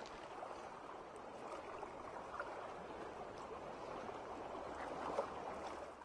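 Soft, steady underwater bubbling and gurgling, with a couple of brief bubble blips.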